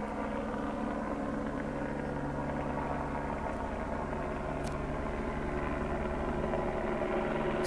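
Helicopter circling overhead, its rotor and engine making a steady drone that grows a little louder near the end.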